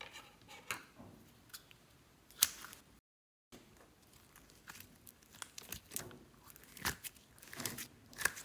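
Sticky pink slime being squeezed and pulled out of a rubber pineapple squishy toy by hand, making irregular wet clicks and crackles. The sound drops out completely for about half a second roughly a third of the way in.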